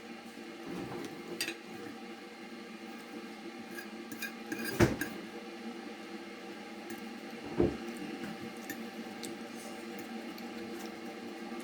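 Dishes and utensils clinking and knocking, with two louder knocks about five and seven and a half seconds in, over a steady background hum.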